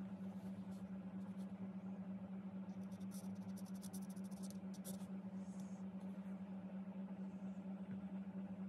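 Pencil scratching on paper in quick small strokes from about three to five seconds in, as a short signature is written, over a steady low hum.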